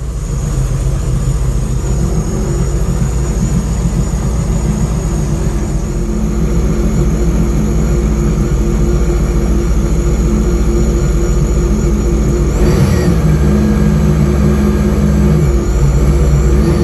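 Mini jet boat under way, its engine running steadily with a rush of noise over it; the engine note shifts briefly about twelve seconds in.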